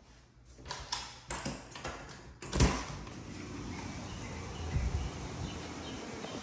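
A run of clicks as a door lock and latch are worked, then a loud knock as the back door is pulled open, followed by steady outdoor noise.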